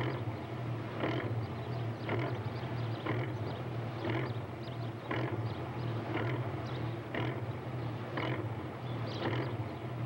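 Small motor fishing boat's engine running slowly, with a steady low drone and a regular chuff about once a second.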